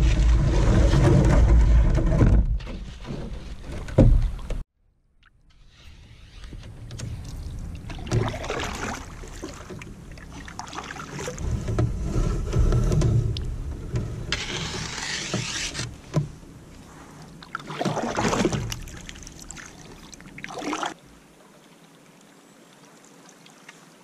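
Canoe paddle strokes in shallow river water, splashing and dripping, one stroke every few seconds. Wind buffets the microphone for the first few seconds.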